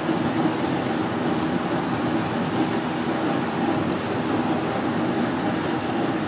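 A gas or blower-fed forge running with a steady, even roar. No hammer blows are heard.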